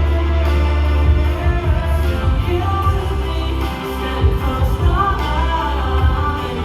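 A band playing a pop-rock song with guitar and bass, with a singer's voice carrying the melody.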